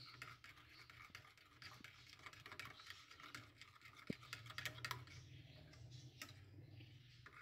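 Faint scraping and clicking of a metal spoon stirring thick yogurt chutney in a ceramic bowl, over a low steady hum.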